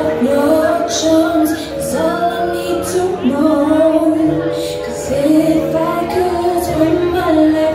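Music played for a couple's dance: a song with a woman singing long, held notes over a steady accompaniment.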